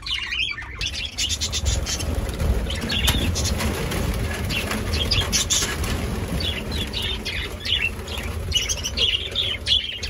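A flock of budgerigars chirping constantly while wings flap and flutter as the birds take flight, over a low rumble.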